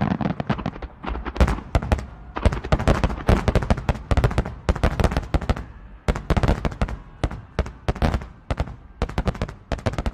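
Fireworks display with many aerial shells bursting at once: a dense, rapid run of sharp bangs and crackles, many a second, coming in uneven clusters.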